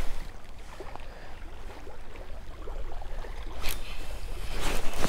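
Wind buffeting the microphone as a low, steady rumble, with handling noise from a spinning rod and reel. There is a sharp rustle past three and a half seconds in, and quick ticks and rustles near the end.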